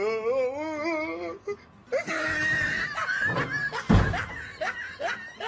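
A high wavering voice, then shrieking and laughing voices, and about four seconds in a heavy thump as a cat drops off the top of a wooden wardrobe and the wardrobe door bangs open.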